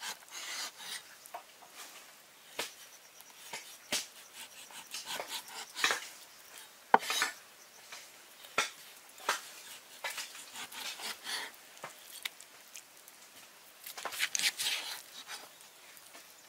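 Cleaver slicing raw beef on a wooden chopping board: irregular knocks as the blade meets the board, with short slicing scrapes between them, about one every half second to second. The loudest knock comes about halfway through.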